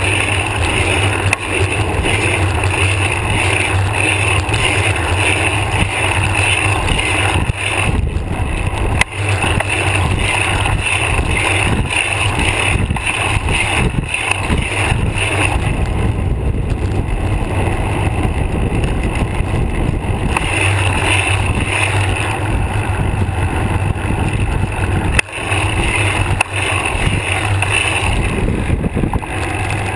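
Steady road rumble and vibration from a bicycle in motion, picked up by a GoPro clamped to the seatpost, with frequent small knocks as the bike rolls over bumps in the road.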